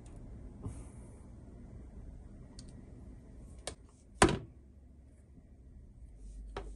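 Wire strippers working on wire: a few short, sharp clicks and snips, the loudest about four seconds in.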